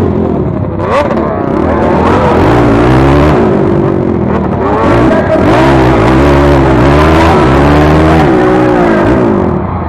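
Racing quad engines revving hard, their pitch rising and falling again and again under throttle.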